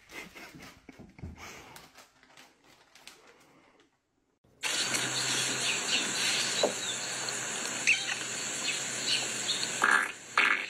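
Faint scattered knocks and shuffles, then a loud, steady rushing noise that starts suddenly about four and a half seconds in, with a few short bird chirps over it.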